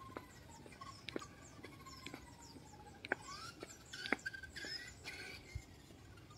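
Small birds chirping and whistling: many short, high, falling chirps and one long slow falling whistle, with a few sharp clicks scattered through.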